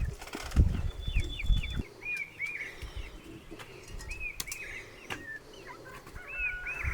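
Small birds chirping over and over in short up-and-down notes, mostly in pairs. Loud low rustling thumps run through the first two seconds.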